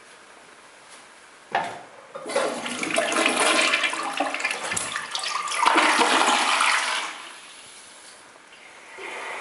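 Toilet flushing: a sharp clack about a second and a half in, then water rushing loudly into the bowl for about five seconds before dying away, and a steady hiss starting near the end.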